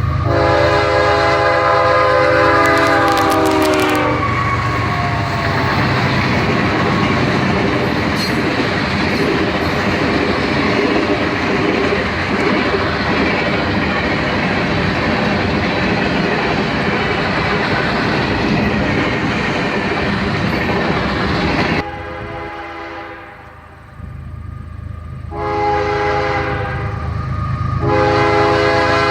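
A passing train: the locomotive's air horn sounds a chord that drops in pitch as the engine goes by, then the cars rumble and clatter past on the rails. The sound cuts off abruptly about three quarters of the way in, and the horn sounds again twice near the end.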